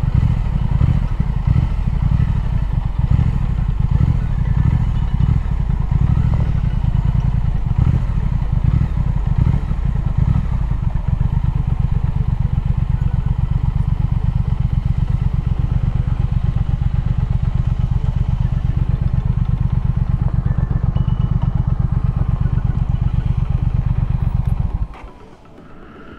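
Triumph Speed Twin's parallel-twin engine running with uneven pulses at first, then idling with a steady, even beat. It is switched off about a second before the end, and the sound cuts off suddenly.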